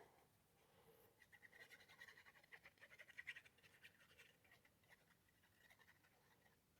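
Faint, rapid scratching of paper being rubbed, fading out about four and a half seconds in: patterned paper being smoothed down onto card.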